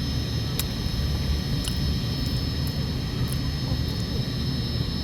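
Steady low rumble with faint, steady high-pitched tones over it and a few faint clicks.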